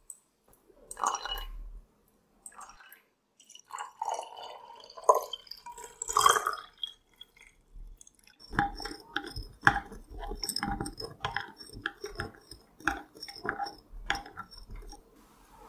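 A drink pouring into a glass tumbler, splashing and dripping, then a run of light, evenly spaced clinks and taps against the glass as it is stirred with a straw.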